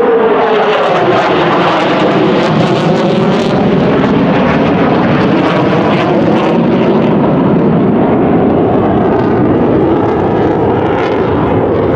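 A formation of F-15C Eagle fighters passing overhead, their twin turbofan jet engines making a loud, steady roar. A tone in the roar drops in pitch over the first couple of seconds as the jets go by.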